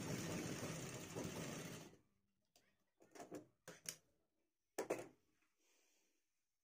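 Black Bharat sewing machine stitching steadily for about two seconds, then stopping abruptly. A few short clicks and rustles follow as the shirt cloth is pulled away from the needle and handled.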